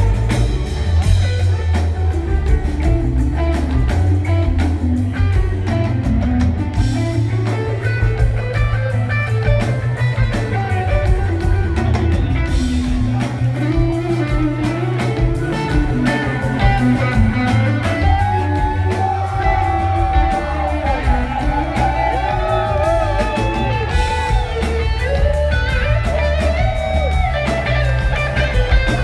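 Live rock band playing an amplified jam: electric guitar over bass guitar and drum kit. From about eighteen seconds in, a high lead line with sliding, bending notes comes to the front.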